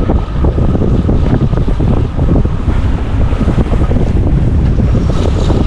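Heavy wind buffeting the microphone on a small boat under way, with the rush of sea water around the hull beneath it.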